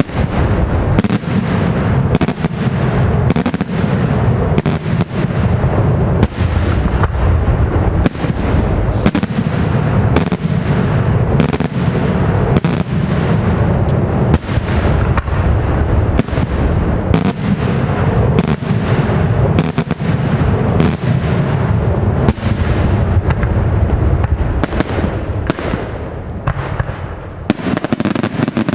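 Daytime fireworks shells bursting overhead into many small reports: a continuous barrage of loud bangs and crackling, with sharper bangs about every half second to a second, easing slightly near the end.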